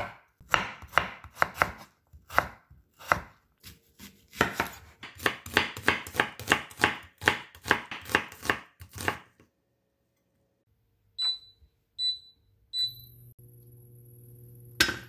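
Kitchen knife chopping potato sticks and then onion on a wooden cutting board, quick repeated strokes for about nine seconds. After a pause, an induction cooktop's touch controls beep three times as it is switched on, then its steady low hum and faint high whine begin, with one knock near the end.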